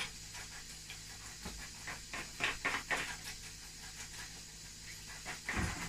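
A few light clicks and scrapes of a metal spoon in a plastic mixing bowl, about two to three seconds in, over a faint steady hum.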